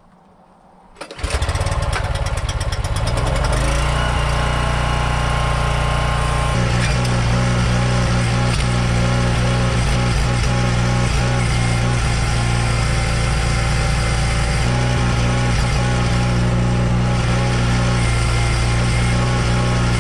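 Small engine powering a log trailer's hydraulic crane: it starts about a second in and then runs steadily, its note growing stronger about six and a half seconds in as the crane is worked.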